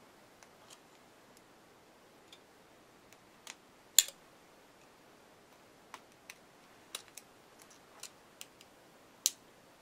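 Scattered small, sharp clicks and taps in a quiet room, the loudest about four seconds in and another just before the end.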